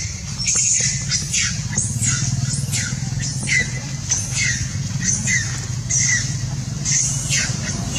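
A young female macaque screaming while a male mounts her, in short high shrieks that come about once a second, over a steady low rumble.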